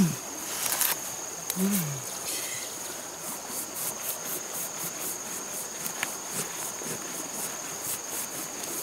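Insects trilling: a steady high-pitched buzz, joined from about three seconds in by rapid, evenly spaced chirping pulses, about three a second. A brief falling voice sound from the woman about two seconds in.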